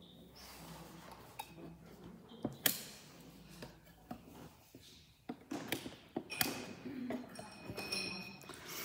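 A flat metal blade pressing down the metal retaining lugs on the back of a picture frame: scattered sharp metallic clicks and light scrapes, with a small cluster of clicks a little past halfway.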